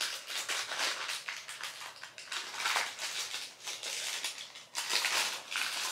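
Packaging rustling and crinkling in short, irregular bursts as items are dug out of a cardboard subscription box and unwrapped.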